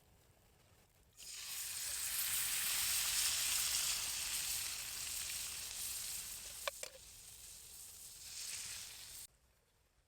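Steak sizzling in a hot pan over a campfire: a loud sizzle that starts suddenly about a second in, slowly eases, and cuts off sharply near the end, with a single click partway through.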